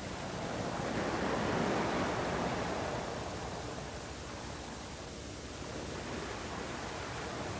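Steady hiss of a VHS security-camera recording. About one to three seconds in it swells into a louder rushing sound.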